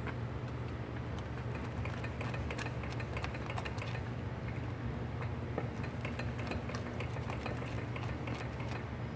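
A wooden spatula stirring a thick bread-and-broth porridge in a stainless-steel pot, with many small irregular scrapes and clicks against the pot, over a steady low hum.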